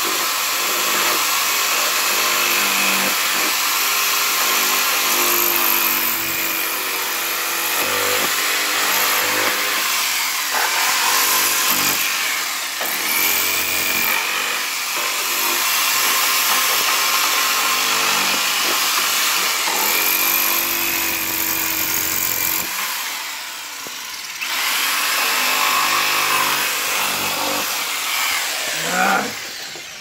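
Handheld power saw running under load, its blade cutting through the plastic wall of a cooler, the motor pitch rising and falling as it bites. It eases off briefly about two-thirds through, then cuts on.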